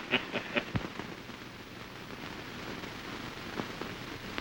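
Steady hiss and crackle of an early-1930s optical film soundtrack, with a quick run of sharp clicks in the first second.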